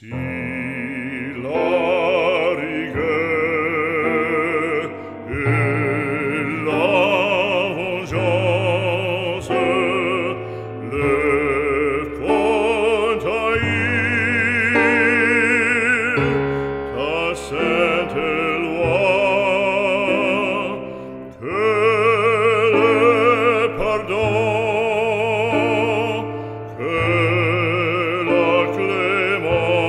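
Background music: a classical-style solo voice singing long notes with strong vibrato over a sustained accompaniment.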